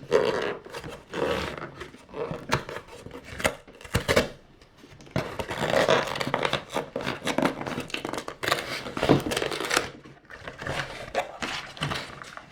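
A parcel's packaging being torn open and crinkled by hand, in irregular rustling and tearing bursts with a few sharp clicks.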